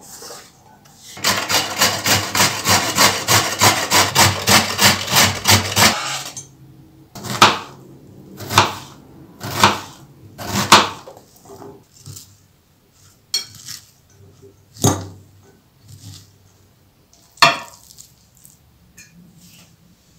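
Knife cutting vegetables on a plastic cutting board. First comes a quick, even run of strokes at about four to five a second, then single sharp cuts about a second apart as an onion is chopped, then a few lighter taps and clicks.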